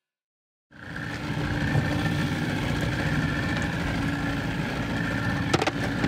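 Small boat's outboard motor running steadily, coming in just under a second in, with a couple of sharp knocks near the end.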